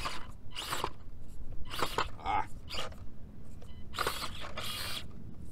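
Axial SCX24 1/24-scale crawler's small brushed motor and gearbox whirring in several short bursts of throttle as the truck climbs over firewood logs, the longest burst about four seconds in.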